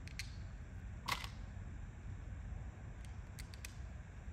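Small metal hardware (quarter-20 bolts and hinges) being handled by hand: a few short clicks and clinks, the clearest about a second in and two faint ticks a little past three seconds, over a low steady room rumble.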